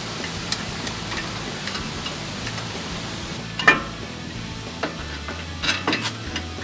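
Metal clinks and knocks of a steel brake caliper bracket being fitted over the rotor onto the knuckle of a Ford F250 Super Duty front brake. There is a sharp clank about halfway through and a quick cluster of knocks near the end.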